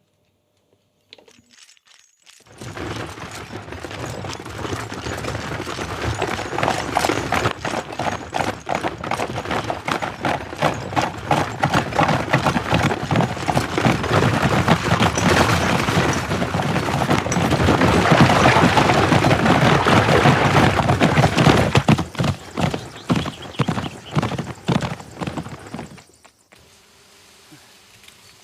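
Layered foley mix of a horse-drawn carriage: horse hooves clip-clopping over a dense rattle of rolling wheels and clattering metal. It starts about two and a half seconds in, grows louder, and cuts off suddenly a couple of seconds before the end.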